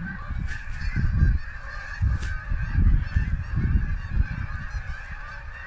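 A large flock of geese flying overhead, many birds honking at once in a continuous chorus of overlapping calls. The season's migration is under way. Irregular low rumbling on the microphone runs beneath the honking.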